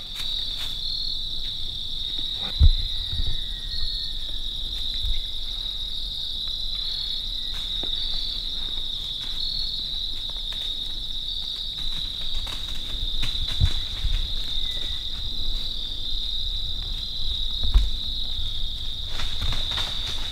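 Crickets singing in a steady high-pitched chorus, with a slightly louder pulse about every second and a half. A few low thumps stand out over it.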